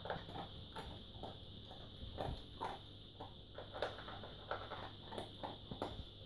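German Shepherd dog chewing and crunching dry kibble from a plastic bowl: quiet, irregular crunches about three a second.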